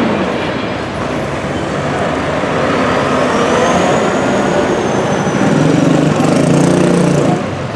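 Volvo FH truck's diesel engine pulling a tipper semi-trailer past at low speed. It grows louder near the end as the truck passes closest, then drops off suddenly. A faint high whine rises and fades midway.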